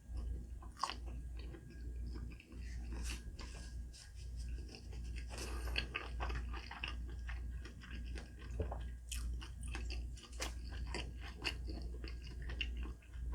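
Close-miked chewing and biting of dim sum: irregular wet mouth clicks and soft crunches, over a steady low hum.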